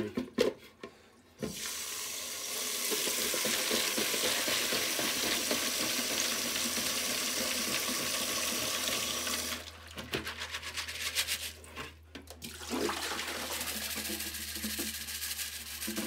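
Tap water running into a utility sink over a plastic basket of Cherry MX switch parts, rinsing off the ultrasonic cleaning solution while a hand rubs the parts around. The water stops for about three seconds partway through, leaving a few clicks of plastic parts, then runs again more quietly.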